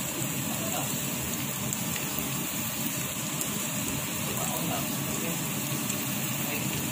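Chopped onion and garlic frying in hot oil in a pan, a steady sizzle.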